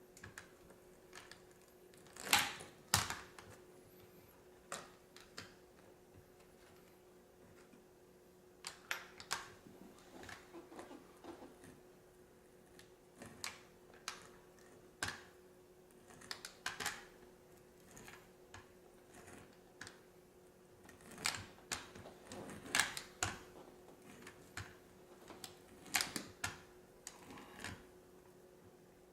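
Irregular clicks, taps and knocks of hand tools being picked up and set down, over a faint steady hum.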